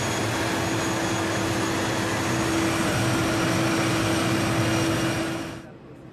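Twin-turboprop airliner's engines running as it taxis: a steady, loud rush of noise with a held low hum and faint high whine, cut off abruptly about five and a half seconds in.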